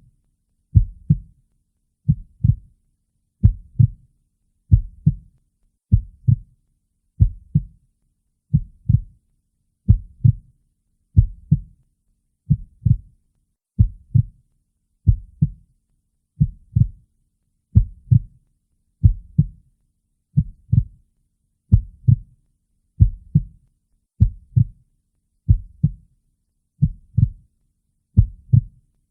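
Recorded heartbeat: a steady, even rhythm of low lub-dub double thuds, a little over one beat a second.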